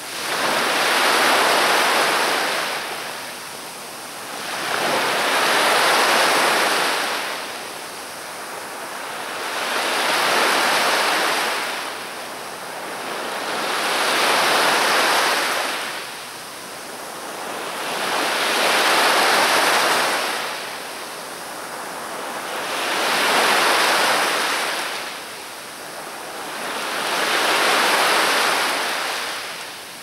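Black Sea surf: waves washing onto the shore in a slow, even rhythm, one about every four seconds, each swelling up and then fading back.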